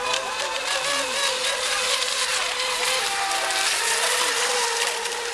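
Several radio-controlled racing boats running at speed, their motors making a steady high whine, with fainter pitches sliding up and down as the boats pass and turn, over a steady hiss.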